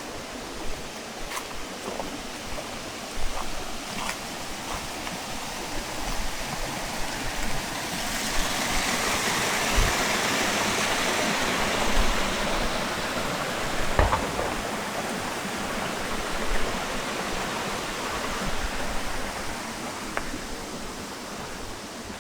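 Spring-fed stream running steadily, the rush of water swelling louder and brighter for several seconds in the middle, with a few faint ticks.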